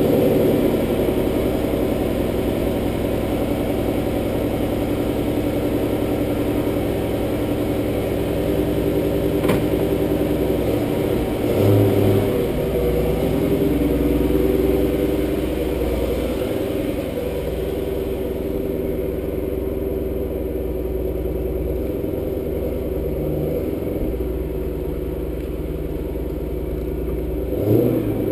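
2010 Dodge Challenger R/T's 5.7-litre Hemi V8 running at idle and low revs through a Mopar Performance (Corsa) exhaust, a steady low burble as the car rolls slowly. It swells briefly about twelve seconds in and again near the end.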